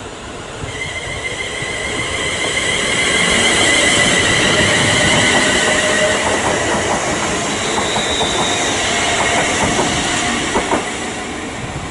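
London Northwestern class 350 electric multiple-unit moving through the station. Its sound swells to a peak and fades away, with a steady high whine over the rumble of the wheels. A few clacks of wheels over rail joints come near the end.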